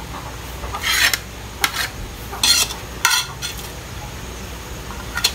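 Metal spatula scraping across a large metal wok as cooked noodles are scooped out onto a plate: a series of short scrapes and clinks, about five in all, the longest about a second in and again about two and a half seconds in.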